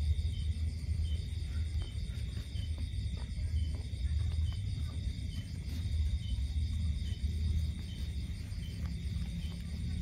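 Chorus of night insects: steady high-pitched chirping with a regular, even pulse, over a low steady rumble.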